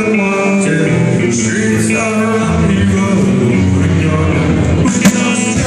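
Live rock band playing: electric guitar, keyboard and drums, with a male singer. A loud hit stands out about five seconds in.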